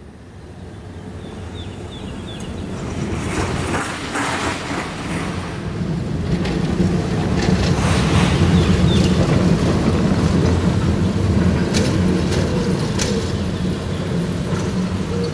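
TFS tram passing on its rails: a steady low motor hum and running noise that grows louder as it comes up and passes, loudest a little past halfway, with sharp clicks now and then.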